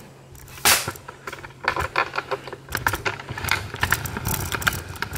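Handling noise from a handheld camera being moved about: a run of small clicks, taps and rustles, over a faint steady low hum.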